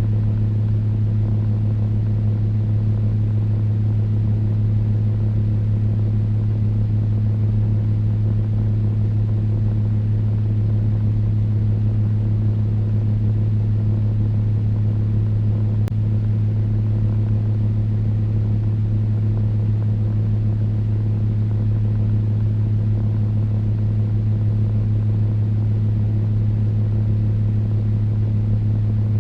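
Electric fan running steadily: a low hum over an even rush of air, unchanging throughout.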